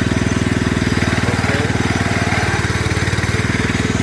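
Small petrol engine of a portable winch running steadily at constant speed, with a fast, even firing beat.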